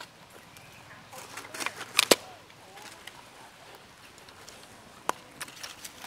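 Dry leaf litter and twigs crackling and snapping as monkeys move over the forest floor, with two sharp cracks close together about two seconds in and another about five seconds in. Faint high wavering calls sound in the first second or two.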